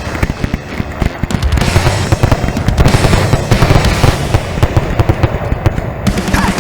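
Fireworks display going off in a rapid, dense barrage of bangs and crackles.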